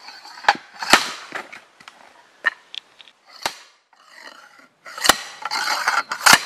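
Manual pole splitter's steel wedge driven down into a small log again and again: about six sharp knocks, unevenly spaced, with wood cracking and splintering between the last two strikes as the log splits apart.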